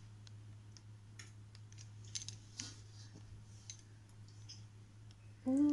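Faint, scattered light clicks and clinks as a metal water pot is handled and lifted, over a steady low hum. Just before the end a woman begins a held, hummed note.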